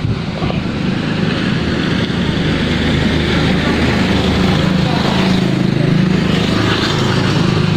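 A motor vehicle's engine running steadily on the move, with wind and road noise over it.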